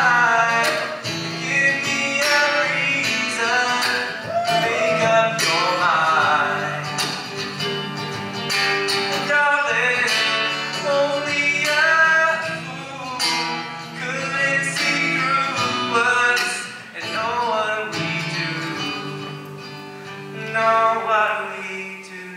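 Live acoustic performance: a man singing into a microphone over a strummed acoustic guitar, the song growing softer near the end.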